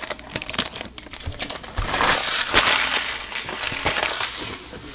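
Trading-card packaging, foil wrappers and cardboard, handled and crumpled: scattered clicks and rustles, then a louder spell of crinkling and tearing in the middle.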